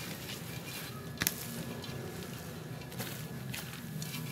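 Chopped spinach sliding out of a plastic colander into a metal pot: a faint, soft rustle, with one sharp tap about a second in, over a low steady hum.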